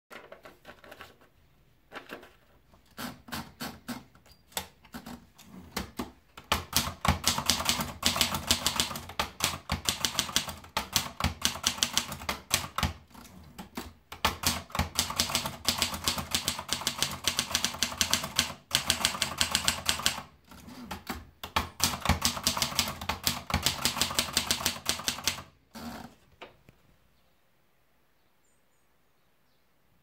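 Adler Tippa S portable manual typewriter: a few clicks as paper is loaded, then fast typing, keys and typebars striking the paper in quick runs with short breaks between lines. The typing stops with one heavier knock a few seconds before the end.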